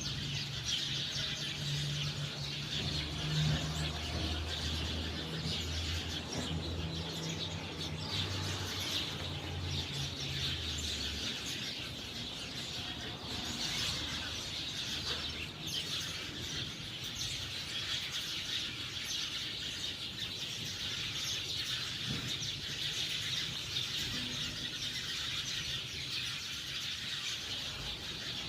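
Cockatiels chirping and chattering in a dense, unbroken stream of high calls. A low hum runs underneath for the first eleven seconds or so.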